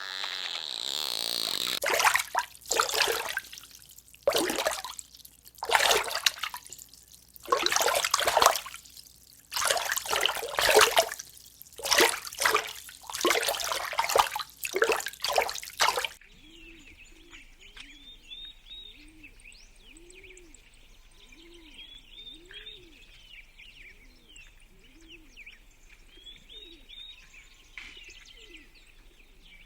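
Loud rushing bursts of noise, roughly one a second, for about the first half. These then cut off abruptly into a quieter bird-like sound: a low, arching cooing call repeated about once a second, over faint high chirping.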